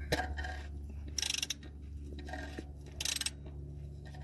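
Ratchet wrench clicking in two short, rapid runs about two seconds apart as it is swung back between strokes, loosening a cartridge oil filter housing cap with a cap-wrench socket.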